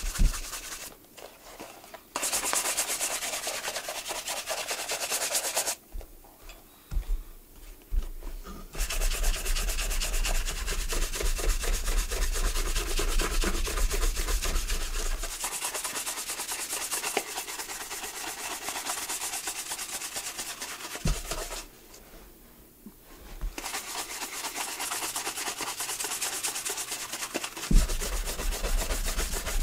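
Rubbing on a leather shoe in long runs of quick, even strokes, broken by short pauses about six and twenty-two seconds in. A few soft knocks come between runs.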